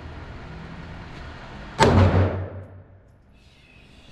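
A single gunshot from a handgun or rifle, fired about two seconds in, sharp and loud with a reverberant tail that dies away over about a second.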